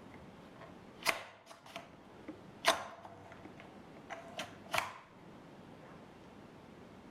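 A handful of sharp clicks and light knocks, as of hard parts being handled, in three clusters about a second in, near the middle and around two-thirds through; a couple leave a brief ring.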